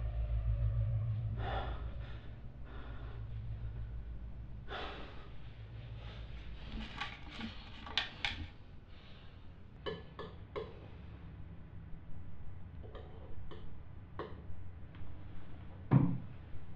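A man breathing heavily and gasping, in uneven breaths a second or a few seconds apart, over a low hum that fades away in the first six seconds or so. A short, louder knock comes near the end.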